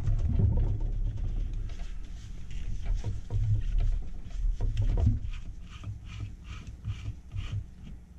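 Handling noise at a vacuum pump during an oil change: low bumps and knocks, then, in the second half, a run of short scraping clicks about two a second as the pump's top fill cap is unscrewed.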